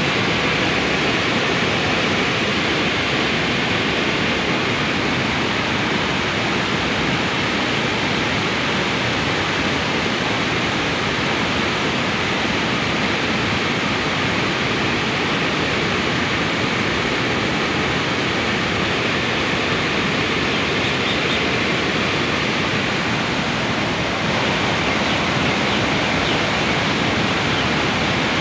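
Water rushing steadily through the Khandong Dam's open spillway gates, which have been opened to release water after heavy rain.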